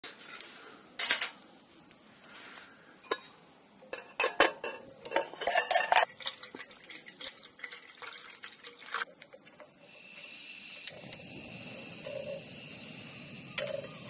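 Clinks and knocks of a small Trangia aluminium kettle and its lid being handled and set on a SOTO ST-340 gas stove, then a steady gas-burner hiss from about ten seconds in as the stove runs.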